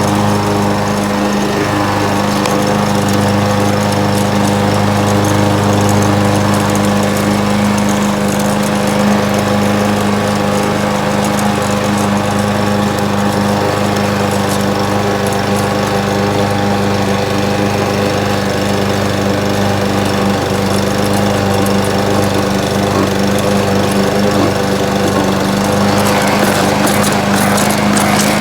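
Gas-powered walk-behind push lawn mower running steadily while mowing grass.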